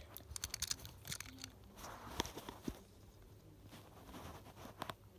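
Light clicks, taps and rustles from a die-cast toy car and its plastic and card packaging being handled, with a quick run of clicks at the start and a few scattered ones after.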